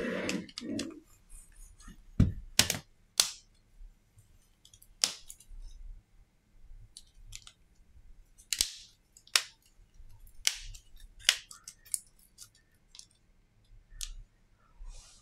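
Sharp plastic clicks and snaps, about ten of them at irregular intervals, as a Samsung Galaxy A32 5G's body is handled and pressed in the hands, with a brief rustle in the first second.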